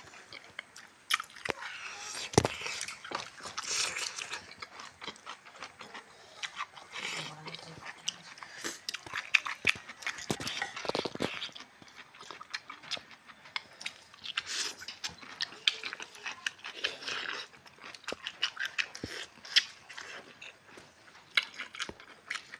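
Close-up chewing and lip-smacking from eating rice and meat by hand, a run of irregular wet clicks and smacks.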